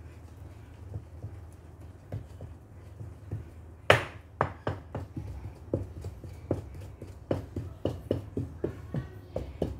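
Wooden spoon stirring thick brownie batter in a metal bowl, knocking against the bowl. The stirring is quiet at first; a sharp knock comes about four seconds in, then short knocks about two or three a second.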